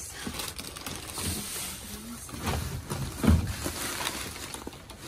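Plastic bags and trash rustling and crinkling as they are rummaged through by hand, with a dull thump about three seconds in.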